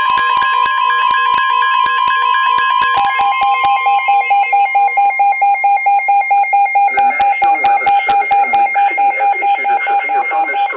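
Several weather radios sounding a Severe Thunderstorm Warning alert together: a steady alert tone with other radios' alarm beeps layered on it. About three seconds in, this gives way to one radio's rapid pulsing beep, about four a second. From about seven seconds in, a broadcast voice starts faintly under the beeping.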